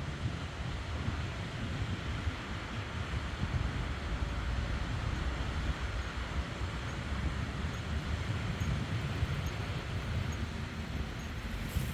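Sea waves washing on the shore as a steady rush, with wind buffeting the microphone in a heavy low rumble.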